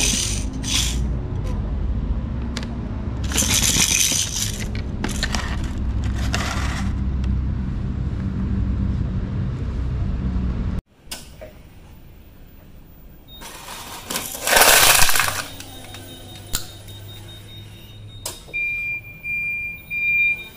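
Clear plastic blister packaging of light-up toy balls crinkling in a hand in short bursts over the low steady rumble of an idling forklift. After a cut, a loud crackling crunch of the plastic toys being crushed comes about two-thirds of the way through, and a steady high tone starts near the end.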